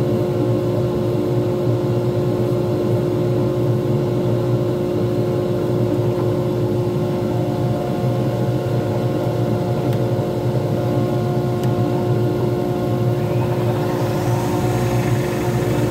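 Small wood lathe running steadily with a resin pen blank spinning on it: a constant motor hum with several steady tones. Near the end a higher hiss joins the hum.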